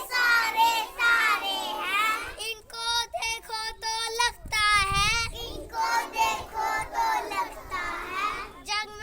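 Young children's high voices singing a rhyme line by line, with short breaks between phrases.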